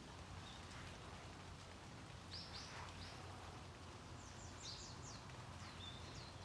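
Garden birds chirping faintly: short high calls that sweep down in pitch, in small clusters about two seconds in, around four to five seconds in, and again near the end, over a steady low hum.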